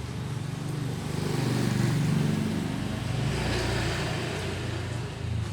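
A passing motor vehicle's engine, growing louder to a peak about two seconds in and then slowly fading as it goes by.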